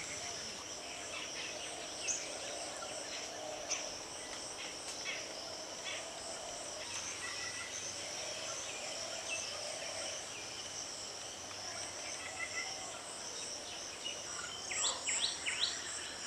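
Insects trilling steadily in a high continuous band, with scattered bird chirps and a quick run of bird calls near the end.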